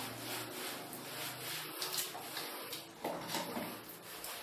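A hand scrubbing soap lather into a wet dog's fur along its back, a repeated rubbing sound stroke after stroke.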